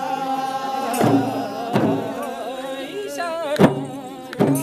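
Kauda folk dance song: a voice singing a wavering melody, with sharp percussive beats every second or so.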